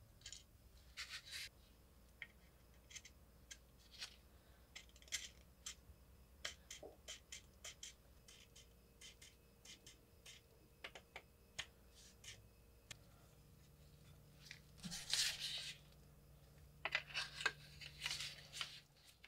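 Small clicks, taps and scrapes of metal pins, a wooden handle and a steel saw blade being handled as a pruning saw is put back together, with a few longer, louder scraping rustles near the end.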